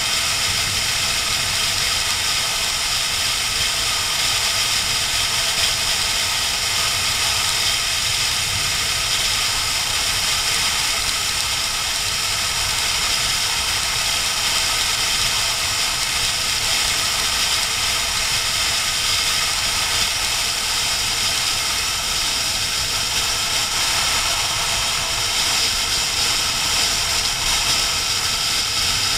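Litre-class inline-four sport bike running at a steady cruise, mixed with a constant rush of wind over the microphone.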